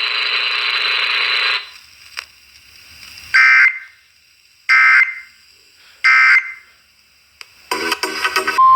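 Emergency Alert System end-of-message signal: three short bursts of warbling two-tone digital data (SAME code), about 1.3 s apart, closing the tornado warning broadcast. Near the end another burst of data is followed by the steady 1050 Hz weather-radio warning alarm tone, which marks the start of the next alert.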